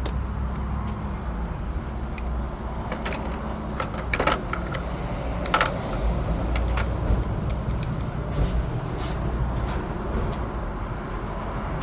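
Scattered small clicks and metallic taps of hand tools prying out the fuse box locks and handling the fuse, over a steady low rumble like a nearby vehicle engine running. The loudest clicks come about four and five and a half seconds in.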